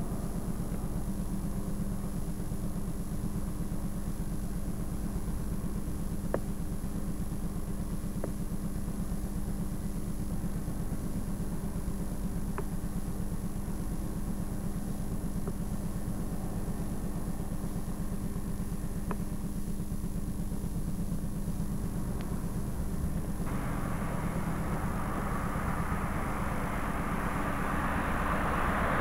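A steady low hum with a few faint clicks; about three-quarters of the way through, a rushing noise comes in and grows louder.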